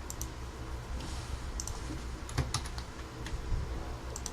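Computer keyboard being typed on in short, scattered groups of keystrokes, over a low steady hum.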